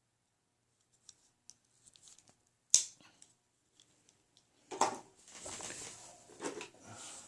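Pocket knives being handled: a few light clicks, one sharp snap a little under three seconds in, then rustling and scraping for about two and a half seconds near the end.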